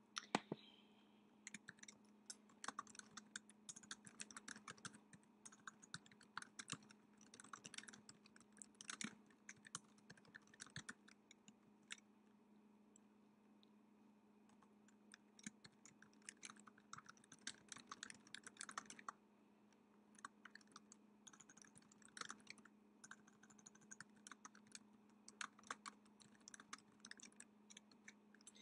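Quiet typing on a computer keyboard: runs of rapid keystrokes with a couple of short pauses, over a faint steady hum.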